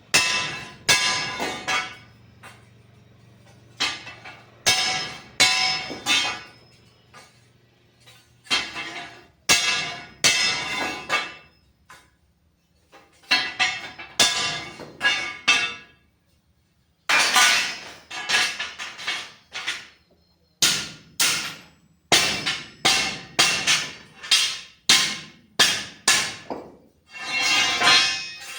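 Hammer striking steel angle iron in bursts of quick blows, each strike ringing with a metallic clang.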